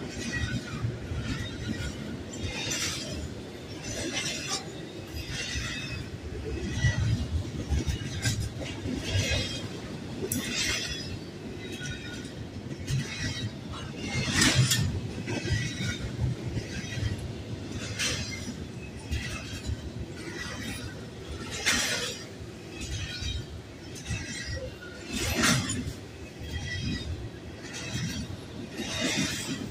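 Double-stack intermodal container train rolling past: a steady rumble of steel wheels on the rails, broken every second or few by sharp, irregular metallic clanks and rattles from the railcars.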